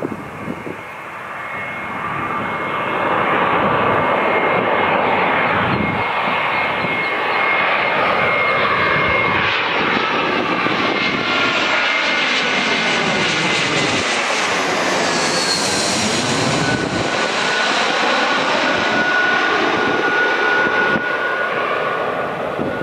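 Airbus A321-200 jet airliner on final approach, passing low overhead. The engine noise builds to a steady loud rush with a high fan whine, and the whine drops in pitch as the aircraft passes overhead about two-thirds of the way through.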